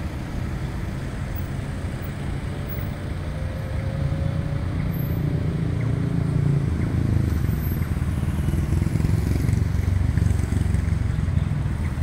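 Low rumble of street traffic, growing louder from about four seconds in as a motor vehicle passes.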